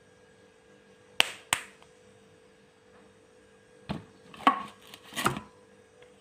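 Hands working roti dough: two sharp slaps about a second in, then a cluster of knocks near the end, one with a brief metallic ring as the hand goes into the steel bowl. A faint steady hum runs underneath.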